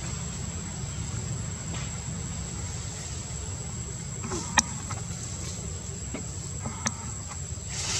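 Steady high-pitched insect drone over a low steady rumble, with two short sharp clicks, about four and a half and seven seconds in.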